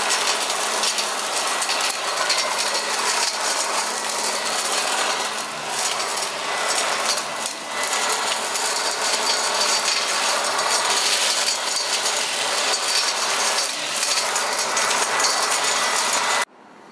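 Corded electric Toro Ultra blower/vac (model 51436) running in vacuum mode with a steady motor hum. Leaves and debris clatter and rattle as they are sucked through its metal impeller. The sound stops abruptly near the end.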